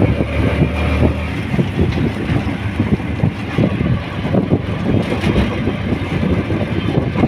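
Auto-rickshaw running along a road, heard from inside the passenger compartment: its small engine going with a dense, uneven rattle.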